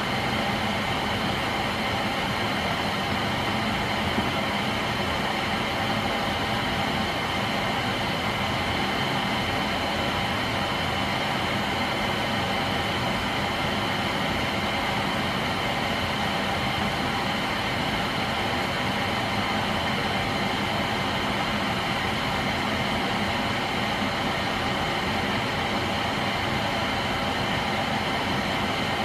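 Steady mechanical hum with an even rush of air and a few fixed whining tones, unchanging in level and pitch throughout.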